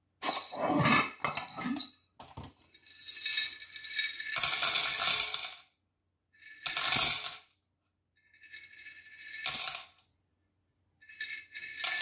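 Dry pasta shaken out of a glass storage jar in about six short bursts, the pieces rattling against the glass and clattering out as a serving is measured.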